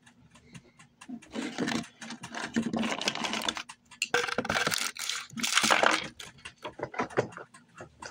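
Close handling noise on the phone's microphone: a jumble of rustling, scraping and small clicks as an arm reaches over the phone and a plush toy is shifted in front of it, loudest about four to six seconds in.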